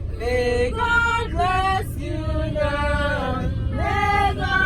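Male and female voices singing a melody together in held notes, over a steady low rumble.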